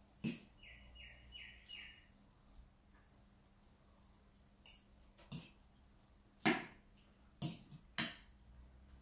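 Metal fork and spoon clinking against a ceramic bowl while eating noodles, about six sharp clinks spread through, the loudest about six and a half seconds in. About a second in, a bird gives four short, falling chirps.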